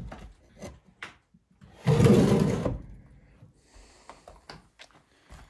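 Old wooden drawer of a kitchen table scraping along its runners as it is pushed shut, one rough noise lasting about a second, about two seconds in. A few faint clicks follow.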